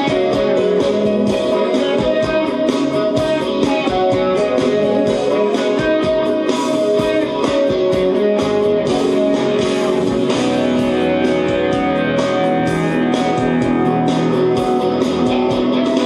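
Electric guitar playing a lead solo of single fretted notes high on the neck, over a band accompaniment with a steady beat.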